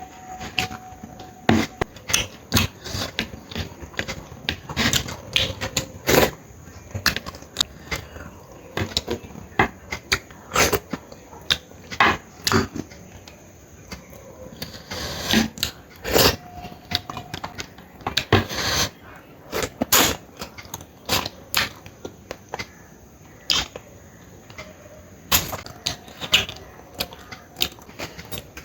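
Close-miked eating: chewing and lip-smacking, with many irregular sharp wet clicks several times a second.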